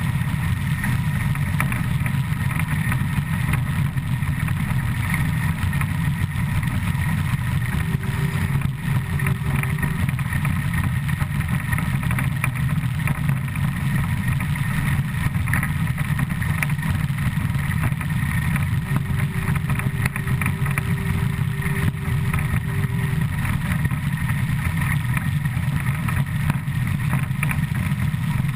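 Škoda ČSD class 475.1 steam locomotive running at about 100 km/h, heard close to its driving wheels and side rods: a steady, loud rush of running gear and rail noise, with wind buffeting the microphone. A faint held tone comes in twice, once briefly and later for a few seconds.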